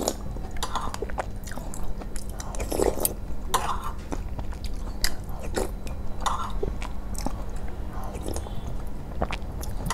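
Close-miked chewing and wet mouth sounds of someone eating soupy masala Maggi instant noodles off a fork, with scattered sharp clicks.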